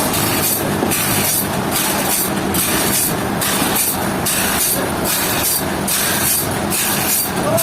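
Sawmill saw cutting through a large rain tree log: a loud, steady grinding noise that pulses at a regular beat a little faster than once a second.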